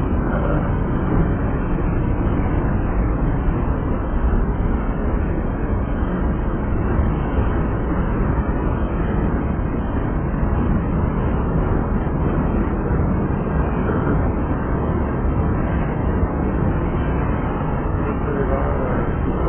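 Freight train cars rolling past at close range: a steady, loud noise of steel wheels running over the rails as covered hoppers and tank cars go by.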